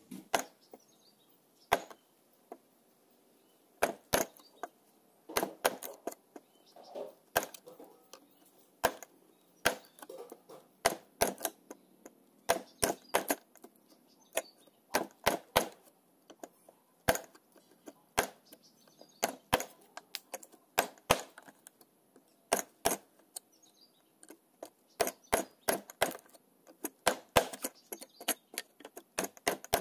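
Chisel being struck again and again to chop out the waste of a wooden L joint in a clamped block of hardwood: sharp knocks in quick runs with short pauses.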